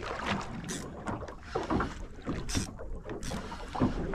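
Water slapping irregularly against the hull of a small drifting boat, with a few short splashes.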